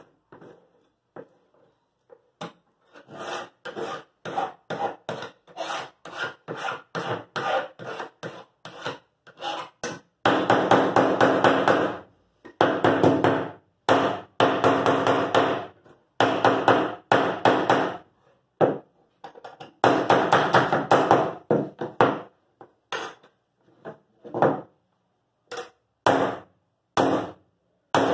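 A hand file rasping on a thin metal strip, first in quick short strokes and then in longer, louder passes. In the last few seconds come separate knocks of a hammer on the metal, about one a second.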